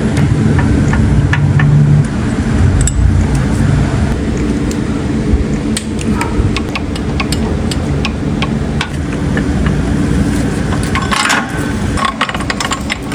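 Steady low hum of a car in the repair bay, with scattered light metallic clinks and rattles of hand tools, and a busier run of clinks near the end.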